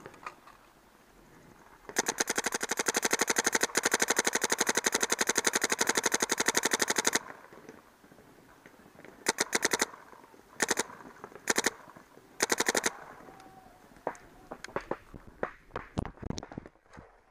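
Electronic paintball marker firing a long, rapid string of shots, at about the 12.5 balls a second the PSP rate cap allows, for about five seconds. Then come four short bursts, followed by scattered thuds of movement near the end.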